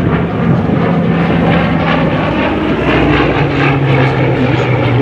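Propeller aircraft flying past loudly, its engine note dropping in pitch a little past halfway as it goes by.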